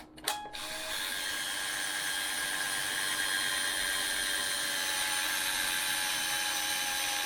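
Canon EOS Rebel 35 mm film camera's built-in film-advance motor auto-loading the film: two sharp clicks, then a steady high motor whine that lasts about seven seconds as the camera winds the whole roll onto the take-up spool.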